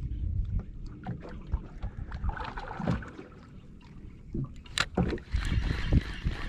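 Small fishing boat at sea: scattered knocks and clicks over a low rumble, with rushing noise rising near the end.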